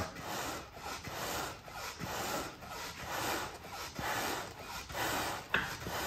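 Wooden and leather hand bellows being pumped into a wood stove's firebox, each squeeze pushing a whooshing puff of air onto the coals to rekindle the fire. The puffs come in a steady rhythm, one or two a second.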